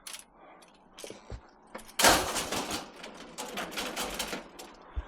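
Scrap being shifted and knocked about while it is loaded: a few light knocks, then a loud clatter about two seconds in followed by a run of knocks and rattles.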